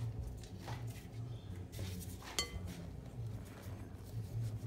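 Silicone spatula stirring dry flour in a glass mixing bowl, brushing and tapping against the glass, with one sharp ringing clink of the bowl about two and a half seconds in.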